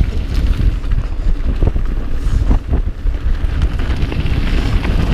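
Wind buffeting the microphone of a mountain bike descending a loose gravel trail, with tyres crunching over stones and sharp rattling clicks from the bike over rough ground.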